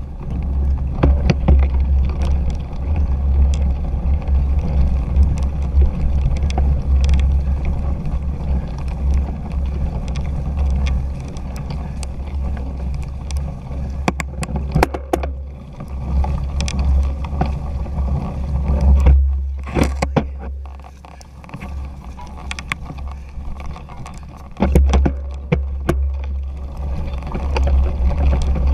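Rumble and wind buffeting on a handlebar-mounted action camera as a 2017 Fuji Jari 1.5 gravel bike rides over rough, rutted grass, with frequent clicks and rattles from the bike jolting over bumps. It goes quieter for a few seconds about two-thirds of the way through.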